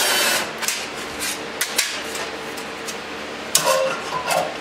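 A power drill's whir stops about half a second in. It is followed by scattered clicks and knocks of tools and hardware being handled at a wooden workbench, with a brief metallic clinking about three and a half seconds in.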